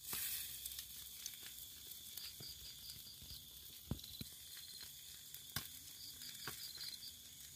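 Fish grilling over glowing charcoal embers: a faint sizzle with scattered small crackles and pops, one a little louder about four seconds in. Crickets chirp faintly in the background.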